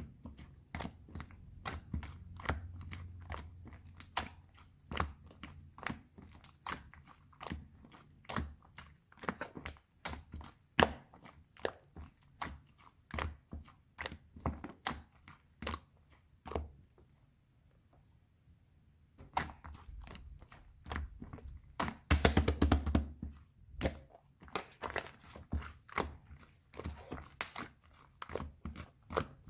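Crisp raw vegetables crunching: a run of sharp, irregular crunches and cracks, with a short lull and then a louder, denser burst of crunching about three quarters of the way through.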